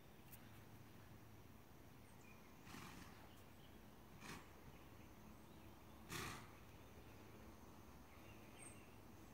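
Near silence: faint outdoor ambience with three short, soft puffs of noise, about three, four and six seconds in.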